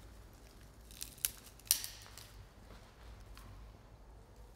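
A few sharp, crisp snips or clicks: three close together about a second in, and a fainter one later.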